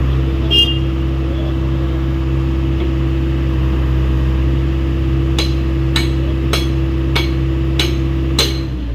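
Hyundai 85A excavator's diesel engine running steadily, with six sharp hammer blows on metal about 0.6 seconds apart in the second half. The engine note drops right at the end.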